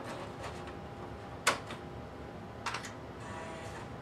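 Clicks of a 3.5-inch floppy disk being handled at the IBM PS/2 Model 70's drive and of a key press on its IBM keyboard: one loud click about a second and a half in and a few quicker clicks near three seconds. Then a faint steady whirr sets in as the floppy drive starts on the disk.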